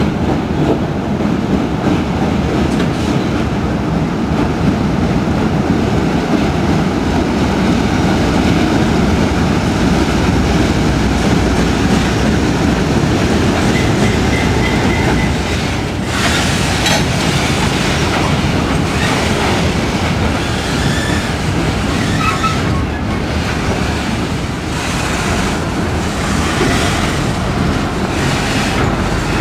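A diesel-electric freight train passes close by. A single GE C30-Super 7R locomotive's 16-cylinder diesel runs under load as it pulls a long train, then loaded freight cars roll past with a steady clickety-clack of wheels on rail joints. Brief high wheel squeals come around the middle and again later.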